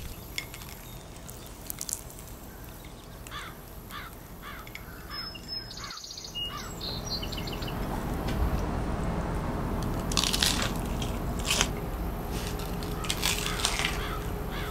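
Crisp crunching of a deep-fried, breadcrumb-coated spaghetti carbonara ball (supplì) as it is broken open and bitten, loudest in the second half. Birds chirp in a short series of falling calls in the first half.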